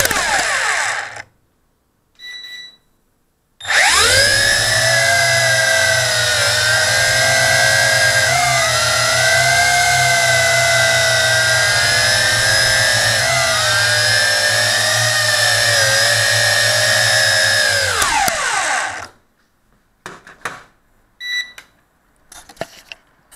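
JJRC Tarantula quadcopter's motors and propellers whining, heard from a camera mounted on the drone. The whine winds down about a second in, a short beep follows, then the motors spin back up near four seconds and run with the pitch wavering as the throttle changes, before winding down again near the end, followed by a few light knocks and short beeps.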